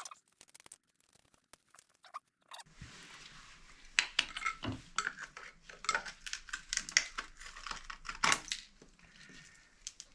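Irregular scraping, clicking and clattering from hand work at an old toilet flange on a concrete slab, starting a few seconds in, with two louder knocks.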